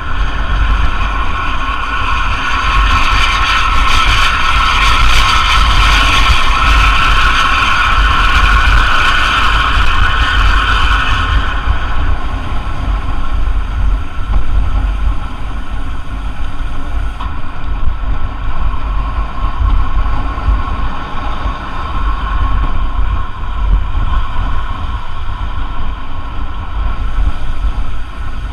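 Intercity bus engine running under way, with a deep steady rumble. A loud high whine over it holds for about the first twelve seconds, then drops away much quieter.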